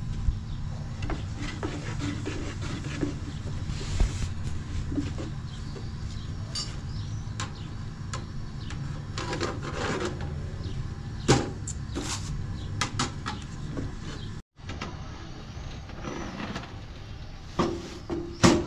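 Thin wooden rolling pin knocking and rolling on a low wooden board as flatbread dough is rolled out, with scattered clicks and taps, over a steady low rumble. The rumble stops about two-thirds through, and a couple of sharp knocks come near the end as the breads are handled.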